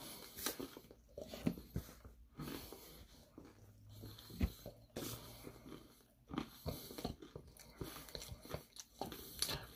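Faint, irregular mouth and breath noises close to the microphone: short clicks and crackles with a few soft breaths.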